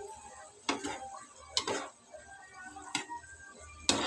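Metal cookware clinks: four sharp knocks about a second apart, the loudest near the end as a metal spatula goes into the pan of simmering squid.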